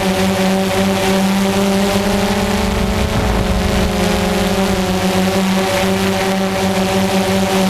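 Quadcopter drone's electric motors and propellers whirring steadily in flight, a constant hum with a brief low rumble about three seconds in.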